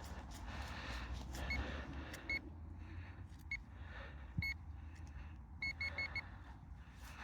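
Handheld metal-detecting pinpointer beeping in short bursts, singly and in quick runs of two to four, as it is passed through dug soil to find a target. Soil and hand rustling run underneath.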